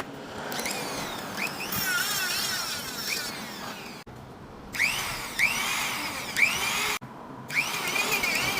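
Sanding a CNC-machined metal surface to take off the machining texture: repeated strokes whose pitch rises and falls in arcs, with abrupt cuts about four and seven seconds in.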